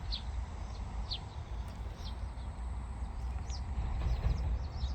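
Birds chirping outdoors, short high calls about once a second, over a steady low rumble.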